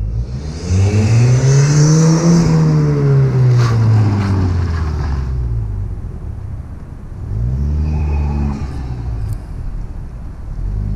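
Ford Fiesta ST180's turbocharged 1.6-litre four-cylinder engine pulling hard as the car drives past. The engine note climbs and then falls away over about four seconds, then rises and falls again, more briefly, about eight seconds in.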